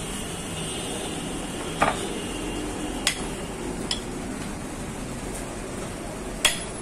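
A few sharp metallic clicks and clinks of a screwdriver prying at the retaining lock of a car AC blower motor, the loudest about two seconds in and near the end, over steady background noise.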